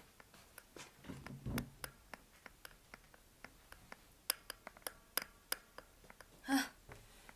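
Scattered light clicks and taps, with a dull thump about a second and a half in and a short vocal sound from a person near the end.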